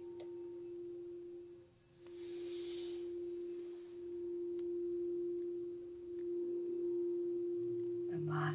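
Frosted quartz crystal singing bowl sung by rubbing a mallet around its rim: one steady, pure ringing tone that swells and ebbs, dips briefly about two seconds in, then builds again. A lower hum joins it near the end.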